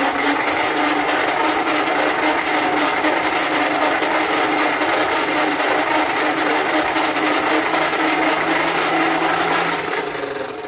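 Forge blower on a coal forge running steadily, a loud hum with air rushing into the fire; it winds down and fades about ten seconds in.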